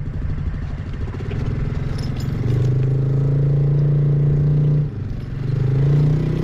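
Off-road vehicle's engine revving under load as it backs up in loose sand. It holds the revs for a couple of seconds, drops off just before five seconds in, then revs again.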